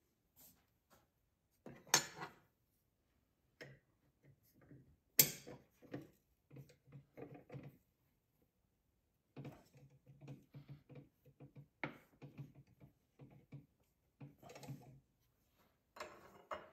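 Metal clicks and knocks of an arbor nut being threaded by hand onto the last few threads of a DeWalt DW7480 table saw's arbor, over a full dado stack. Two sharp knocks come about 2 and 5 seconds in, then a run of light, regular clicks through the middle.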